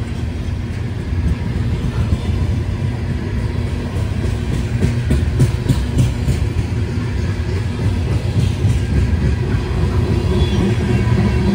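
Freight train cars rolling past close by: a steady low rumble of steel wheels on the rails, with a run of sharp clicks near the middle.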